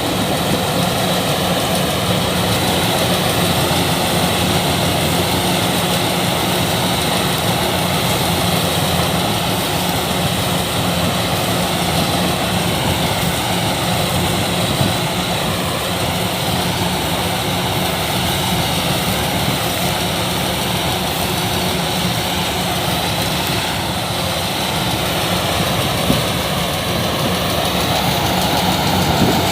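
Kubota DC-105X combine harvester's diesel engine and machinery running steadily at working speed while harvesting rice: a loud, unbroken mechanical drone with a constant low hum.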